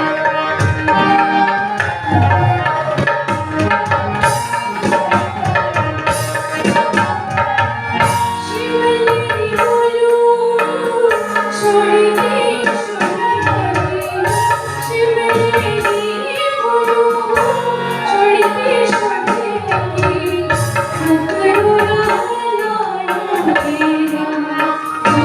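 Himachali Pahadi nati folk music: hand drums keep a steady, busy rhythm under a gliding melody line.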